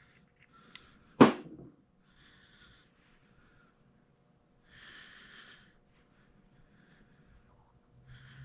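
Handling noises on a workbench while the lip of a crankshaft seal is oiled: one sharp clack about a second in, then a few soft scuffs and rustles.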